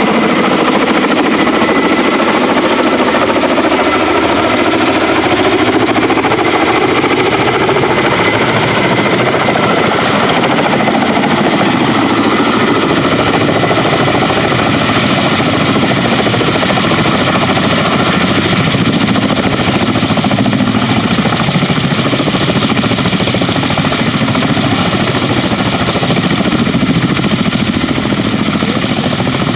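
Kamov Ka-32 helicopter running: its twin turboshaft engines and coaxial rotors make a rapid, steady rotor chop with a thin high turbine whine over it.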